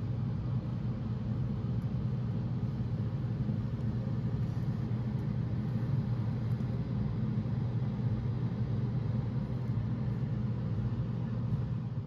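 Steady low rumble of heavy construction machinery running, even in level throughout.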